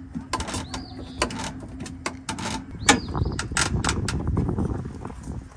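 Metal chain and turnbuckle clinking and rattling as they are handled and tightened: a run of irregular clicks and knocks with a couple of brief metallic rings.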